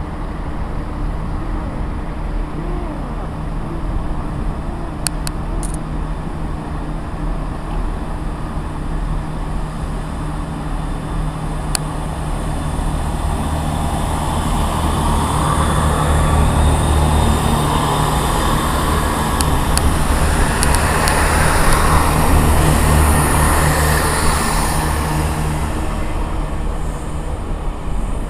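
A train moving through a station, with a steady low drone throughout. It swells over the middle of the stretch with a growing rumble and hiss that peaks about three quarters through, then eases. A few sharp clicks come in between.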